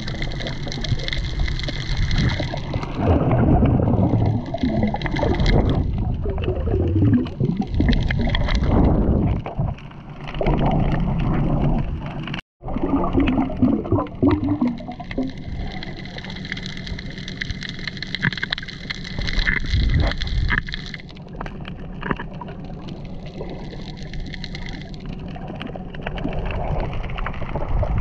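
Muffled underwater water noise from the camera below the surface: water gurgling and sloshing, with a brief dropout about halfway through.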